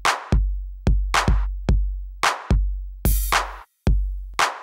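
Electronic intro music: a drum-machine beat of deep, long-decaying bass kicks alternating with sharp claps, with a brief burst of hiss about three seconds in.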